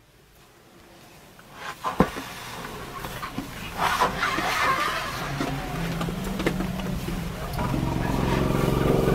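Safari jeep engine running and revving up, growing louder over the second half, with a single sharp knock about two seconds in.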